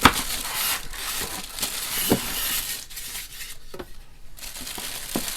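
Packaging being handled and unwrapped: rustling and crinkling with a few short knocks, the sharpest right at the start.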